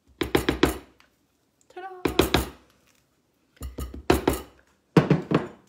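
A kitchen utensil knocking and scraping mashed potatoes into a plastic batter dispenser, clattering against the containers in four short runs of quick taps.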